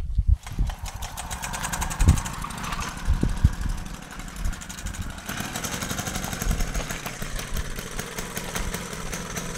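VeloSolex 3800's small two-stroke engine catching after a pedal start, then running fast and steady, with a few thumps about two and three and a half seconds in. The engine has not run for a long while.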